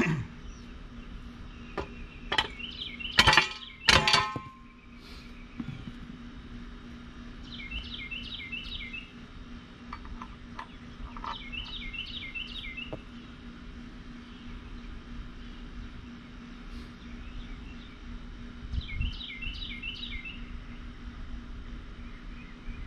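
A few sharp metal clanks with a brief ringing in the first four seconds, then a songbird singing short runs of quickly repeated chirping notes every few seconds, over a steady low hum.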